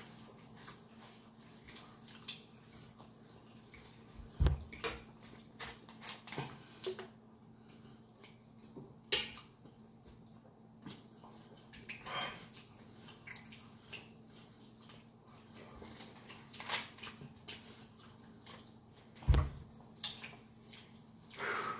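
Close-up eating sounds of fried chicken: chewing, wet lip smacks and scattered clicks as the meat is pulled apart and eaten. There are two low thumps, one about four and a half seconds in and one near the end.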